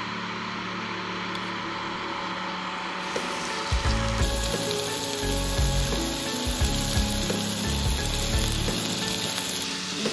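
Fish fillets sizzling in a hot frying pan on a small gas camp stove as they are laid in, the sizzle starting about four seconds in and going on steadily, with a few dull knocks. Before it comes a steady hiss from the lit stove.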